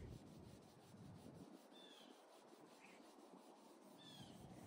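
Near silence, with faint rubbing of an alcohol-wetted rag over a dyed wooden axe handle.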